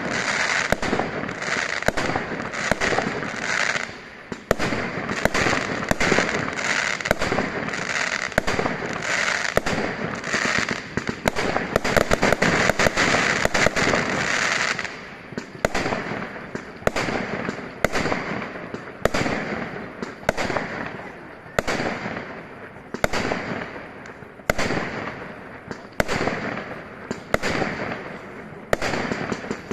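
Aerial fireworks display: a rapid, dense string of bangs and crackling for about the first fifteen seconds, then separate bangs roughly once a second.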